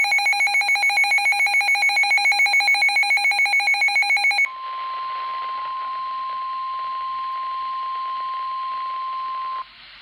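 Midland handheld weather radio sounding its fast-pulsing electronic alert alarm, about seven beeps a second, for the first four and a half seconds as a severe thunderstorm warning comes in. It then switches to the NOAA Weather Radio broadcast audio: the steady 1050 Hz warning alarm tone over radio hiss, which cuts off shortly before the end.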